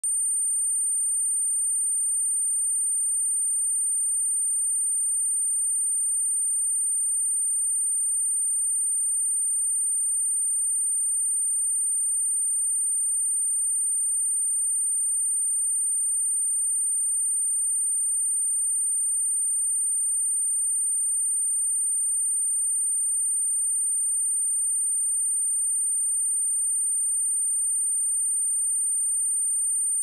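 A pure 8982 Hz sine-wave test tone, one steady high-pitched whistle that holds without change.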